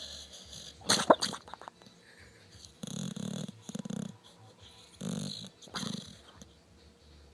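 Pit bull snoring in its sleep: four low snoring breaths in two pairs, after a loud, sudden noise about a second in.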